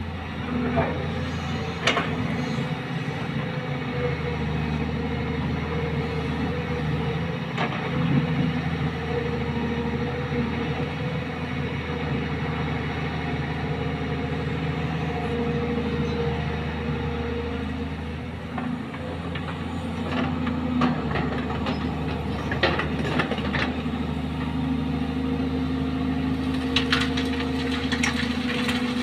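Kobelco hydraulic excavator's diesel engine running steadily as it digs sand and swings to load a dump truck, with a few short sharp clanks and scrapes.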